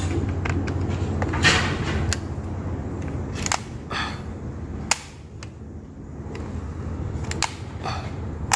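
Circuit breaker toggles on a distribution board being flipped by hand: about five sharp, separate clicks in the second half, over a low hum that fades early.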